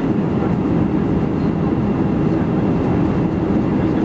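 Steady low rumble of jet engine and airflow noise inside the cabin of an Airbus A319 in flight.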